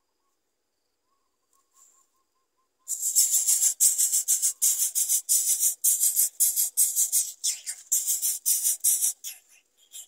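Yellow-vented bulbul nestlings begging to be fed: a loud run of rapid, high, raspy calls that starts suddenly about three seconds in and tapers off near the end.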